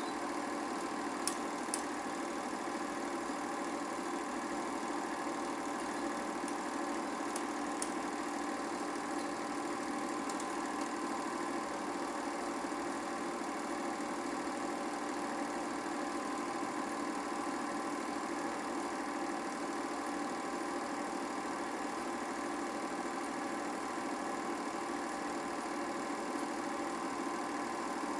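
8mm film projector running: a steady mechanical drone at an even level, with a few faint ticks in the first several seconds.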